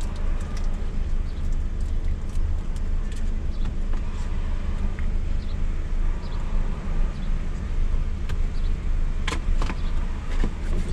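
Steady low rumble of a car heard from inside the cabin, with a couple of sharp clicks about nine seconds in.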